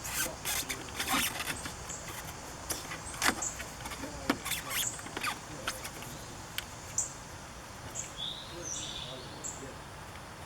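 Plastic clicks and knocks from handling and taking apart a car's power window switch assembly, most of them in the first half. Short high chirps come through faintly in the second half.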